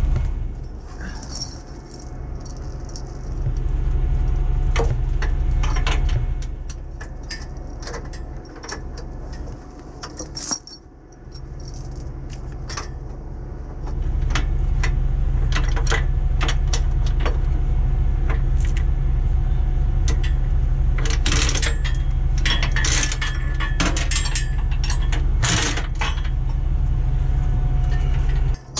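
Tow chains clinking and rattling against a school bus's steel frame as they are hooked on, in irregular clanks. Under them is a steady low engine rumble that drops away twice for a few seconds.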